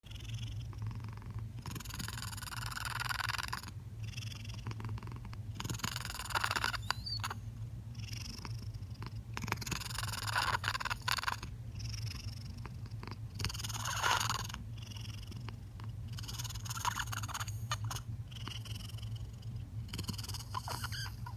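Ginger cat purring, a steady low rumble that swells about every three to four seconds into a louder, raspy, airy stretch, six times in all. The cat purrs with his mouth opening and closing, which changes the pitch; the owner suspects vocal cord damage from kittenhood.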